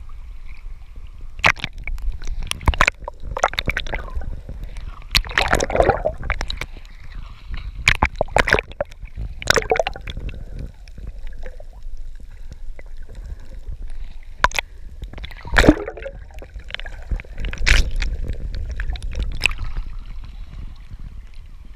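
Water sloshing and gurgling around a camera riding at the sea surface, as it dips under and comes back up, with many irregular sharp splashes against it.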